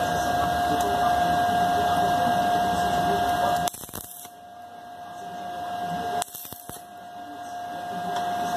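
Electric arc welding on a small steel piece: a steady crackling, hissing arc held for about three and a half seconds, then struck again twice, each pass swelling in level before it stops.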